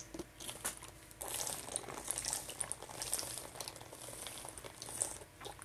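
A person drinking water in gulps from a plastic water bottle: faint, irregular gurgling of the water in the bottle and swallowing, starting about a second in.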